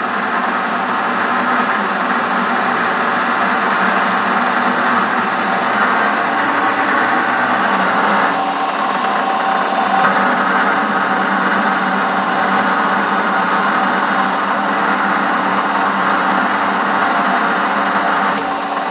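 PowerED PBL400 mini lathe running steadily with its carriage under power feed, a continuous motor and gear-train whine. Just before the end there is a click and the sound drops a little.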